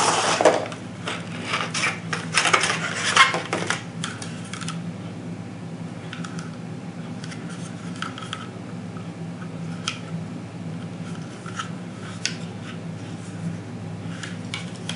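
A holster being taken out of its packaging and handled: scraping, rustling and clicks, busiest in the first four seconds, then scattered single clicks, over a steady low hum.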